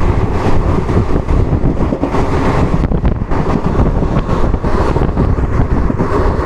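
Wind buffeting the microphone as it is held out of a moving passenger train, over the steady rumble of the coaches running along the track. The noise is loud and fluttering throughout.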